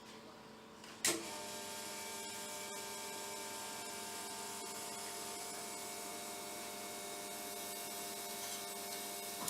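An electrical machine switches on with a sharp click about a second in, then runs with a steady hum made of several steady tones.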